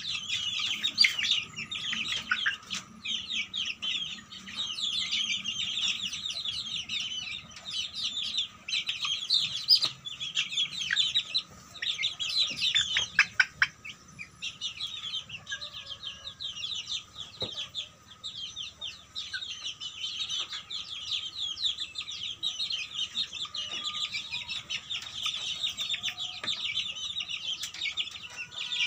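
Young kampung chickens (Indonesian native chickens) in a cage peeping and chirping without pause: a dense, high-pitched chatter of many birds at once.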